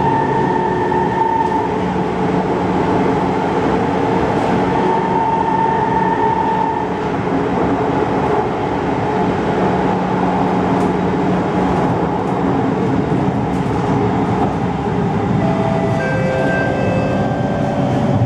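Steady rumble and rush of an SMRT C151 metro train heard from inside the passenger car as it runs through the tunnel. Whining tones come and go over the noise and change pitch near the end.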